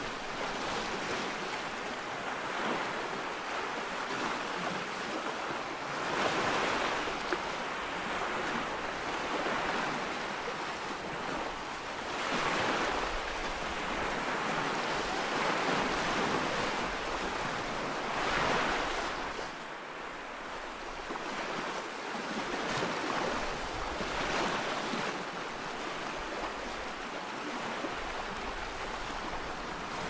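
Ocean surf: waves breaking on the shore in a steady rushing hiss that swells every few seconds as each wave breaks and washes in.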